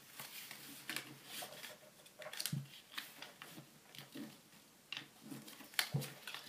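A sheet of paper being folded and creased by hand: faint, irregular rustling and crackling of the paper, with two soft thumps of hands pressing it flat on the table, about two and a half seconds in and near the end.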